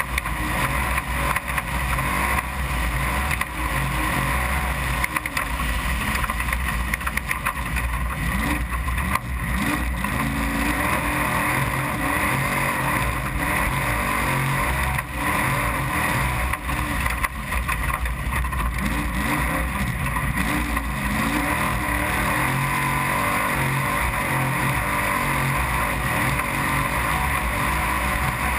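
Trophy truck engine running hard during a race lap, its pitch rising and falling with the throttle, over constant wind and chassis rattle.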